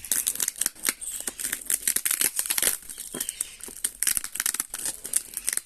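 Packaging crinkling and rustling as it is handled and opened, in a dense run of quick crackles and clicks.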